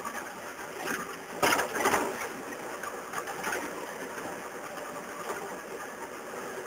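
Vehicle engine running while driving over a rough dirt road, with a steady rattly running sound. About a second and a half in comes a louder clatter lasting about half a second.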